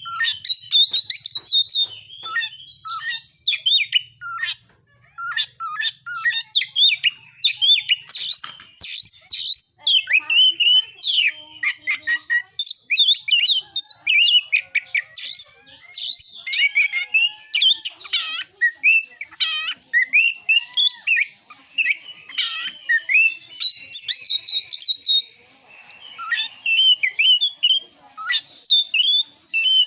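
Oriental magpie-robin (kacer) singing a fast, varied song of sharp chirps, whistles and trills with hardly a pause. This is the full, aggressive 'gacor narung' song used to provoke other magpie-robins into singing.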